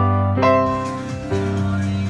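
Background piano music: a slow melody of single struck notes that ring and fade, the notes coming further apart towards the end.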